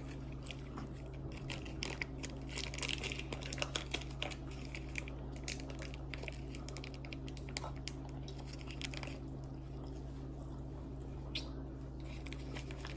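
A person eating close to the microphone: chewing, with many small scattered mouth clicks and smacks that thin out near the end, over a steady low hum.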